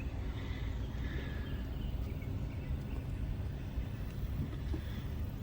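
Steady low rumble of a car in motion, road and engine noise as heard from inside the vehicle.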